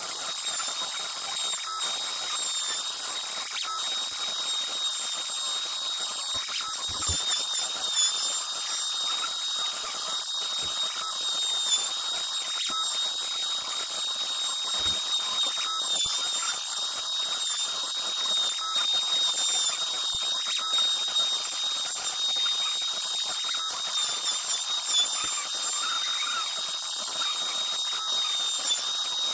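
CNC Shark router spindle running with a steady high whine while a V-bit carves wood, the pitch dipping slightly now and then.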